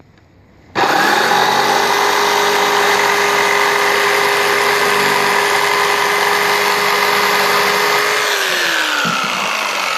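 Black & Decker electric jigsaw starting about a second in and running steadily as it saws through a small oak board; its pitch drops near the end as the motor slows.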